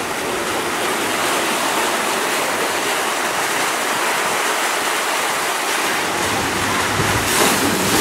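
Water pouring out of the ends of pool water slides and splashing into the pool, a steady rushing. From about six seconds in a low rumble joins it and it grows louder near the end, typical of wind on the microphone.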